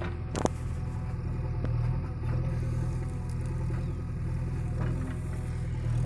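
JCB 3DX backhoe loader's diesel engine running steadily while the backhoe digs soil, with a single sharp knock about half a second in.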